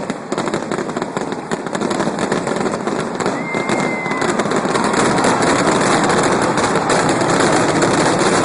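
Fireworks finale barrage: a rapid, continuous stream of bangs and crackling, with no gaps between bursts, growing a little louder about five seconds in.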